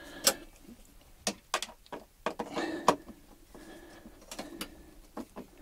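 Handling noise from hands working the green-and-yellow earth cables on a lithium battery rack: about ten sharp clicks and light knocks at irregular intervals, with faint rustling of the wires.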